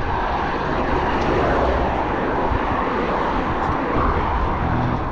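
Steady rush of wind over the microphone of a camera on a road bike moving at speed, with a low rumble underneath.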